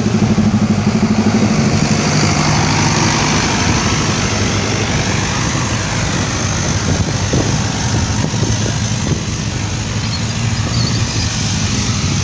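Motor vehicle engine running steadily, with road noise.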